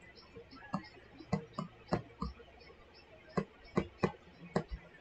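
Stylus tip tapping and clicking on a tablet screen while words are handwritten: several sharp clicks at irregular intervals, with fainter ticks between them.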